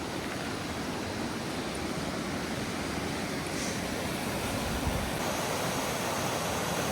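Steady rush of a mountain creek's rapids running full with snowmelt, growing a little louder as it goes.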